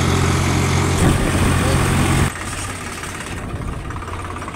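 Swaraj 735 FE tractor's diesel engine running at a steady speed while driving, a strong steady drone. About two seconds in it cuts abruptly to a quieter, rougher rumble.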